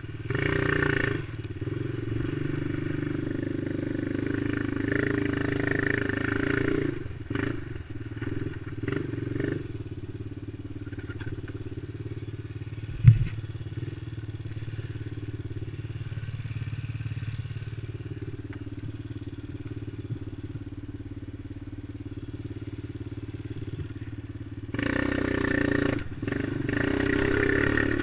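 Quad (ATV) engine heard from the rider's helmet, louder under throttle for the first several seconds, then running quieter and steady. A single sharp knock comes about 13 seconds in, and the engine revs up again near the end.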